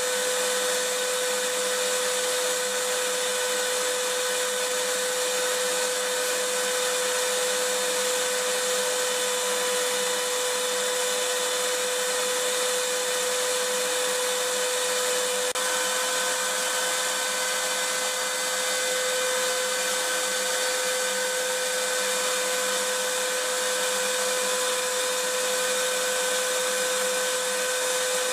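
Vacuum cleaner motor running steadily: a constant hissing rush of air with a steady hum over it, unchanging throughout.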